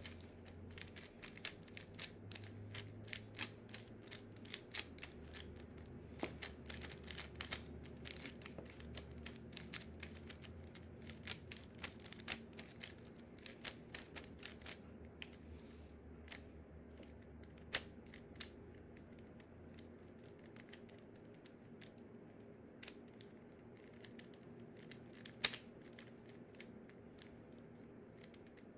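Close handling sounds: many small, sharp clicks and light rustles, packed closely for the first half and thinning out later, with a few louder clicks near the end.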